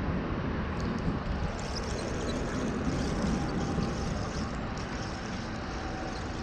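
Steady low rumble and hiss of distant road traffic.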